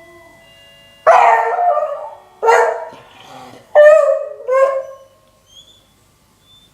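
An old beagle gives four loud, hoarse howling barks, the first about a second in and the last two in quick succession, each breaking off and fading; the third falls in pitch. The rough voice comes with the dog's age, and the barking is the beagle's reaction to the doorbell.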